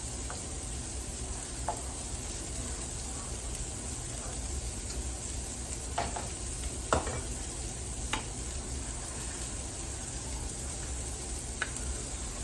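Sausage frying in a pan with a steady sizzle, broken by a few sharp clacks of cookware, the loudest about seven seconds in.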